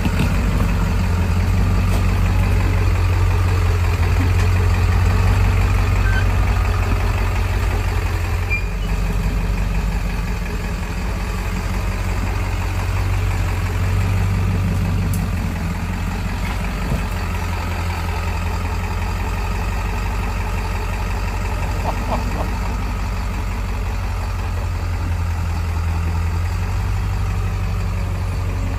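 Truck engine running at low, steady revs as the truck crawls over rocks, easing and picking up slightly now and then.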